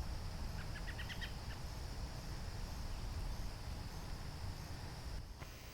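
Outdoor insect chorus: a steady high-pitched drone, with a quick run of faint chirps about half a second to a second and a half in, over a low rumble.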